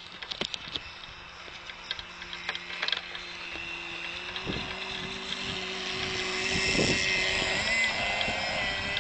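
Model powerboat's OPS 3.5 two-stroke engine with silenced pipe, running at speed as a high-pitched whine that grows louder from about three seconds in as the boat comes close. Wind gusts thump on the microphone.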